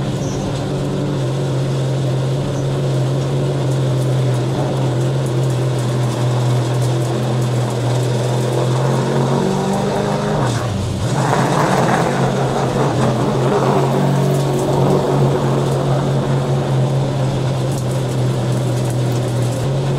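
Late model stock car's V8 engine running steadily at low speed on a tyre-warming run. About halfway through the engine note dips briefly, then picks up again a little louder.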